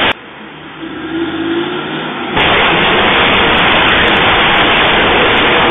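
A car engine revving: a rising engine note a second or so in. Then, from about two and a half seconds in, a loud steady rushing noise.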